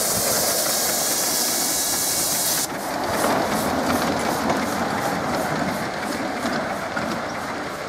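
Safety valve of a live-steam miniature LMS Jubilee locomotive blowing off with a loud hiss that stops suddenly a little under three seconds in. After that the train rolls on with an even clicking, about three or four clicks a second.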